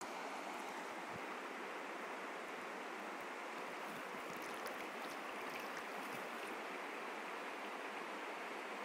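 Shallow river running over stones: a steady, even rush of flowing water.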